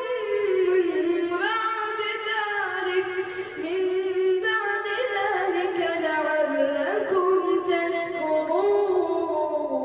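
A solo voice chanting Quran recitation in melodic tajwid style, with long drawn-out notes that slide and step between pitches.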